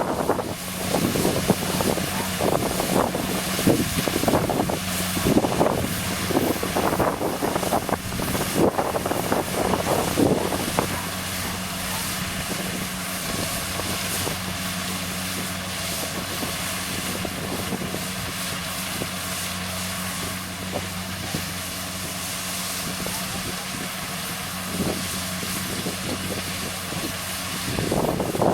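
Kubota DC60 combine harvester's diesel engine running at a steady working speed with a constant low hum. Wind buffets the microphone in gusts over roughly the first ten seconds, then the sound evens out.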